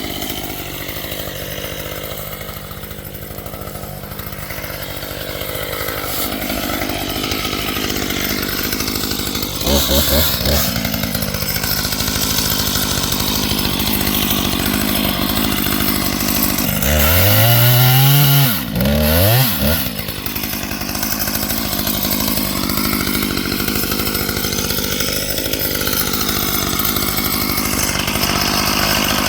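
Husqvarna T540XP two-stroke top-handle chainsaw running, newly fitted with a 14-inch Hipa chain. It revs briefly about ten seconds in, then revs up and down twice more a little past the middle.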